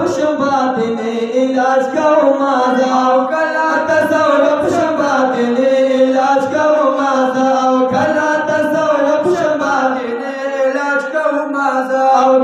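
A man singing a naat unaccompanied into a microphone, in a continuous melodic line with held, gliding notes.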